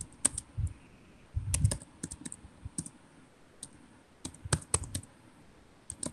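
Computer keyboard typing: irregular keystrokes in short runs with brief pauses between them.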